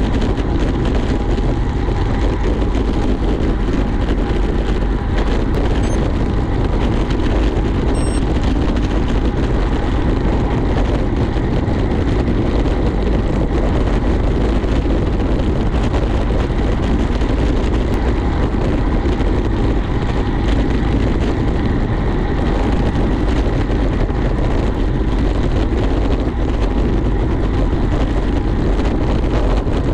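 Steady rush of wind and road noise on a moving microphone, heaviest in the low rumble and unbroken throughout.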